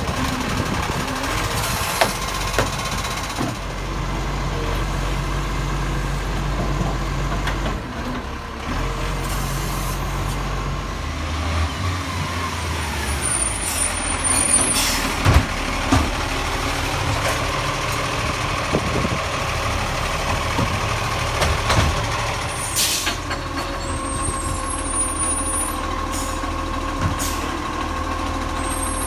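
Side-loader garbage trucks running, with the diesel engine's steady low drone while the automated arm lifts and empties wheelie bins into the hopper, and a few sharp hisses or clunks along the way, some of them air brakes.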